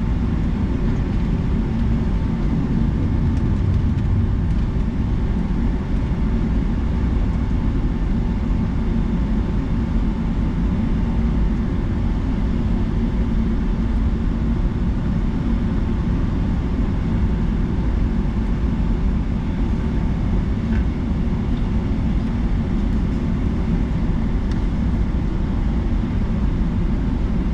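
Boeing 757-200 jet airliner: a steady low rumble of engines and airflow, with a faint steady whine above it.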